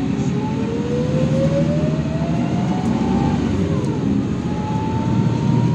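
MAN A74 Lion's Classic city bus pulling away from a stop and accelerating, heard from inside the cabin: the drivetrain whine rises in pitch, drops at a gear change about three and a half seconds in, then rises again over a steady low engine hum.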